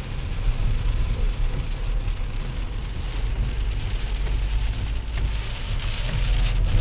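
Steady rain-like hiss over a low rumble.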